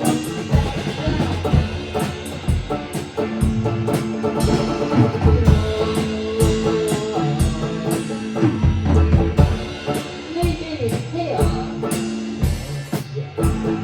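A rock band playing an instrumental passage: drum kit keeping a steady beat with bass drum and snare, under bass and guitar.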